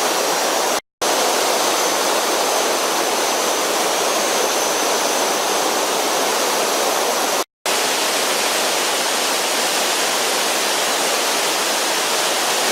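Waterfall and rain-swollen stream rushing loudly and steadily, with two brief dropouts to silence, one about a second in and one near the middle.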